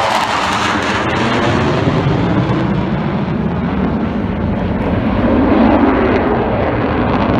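F-16 fighter jet engine noise from a display pass. Its high hiss fades over the first three seconds or so, leaving a steady deep rumble.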